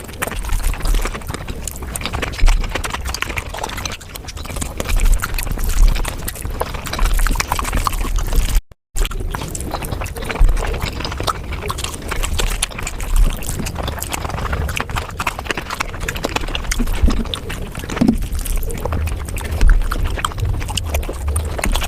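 Close-miked eating sounds of paneer butter masala: wet chewing and lip smacking in quick, uneven clicks, cut by a brief total gap about nine seconds in.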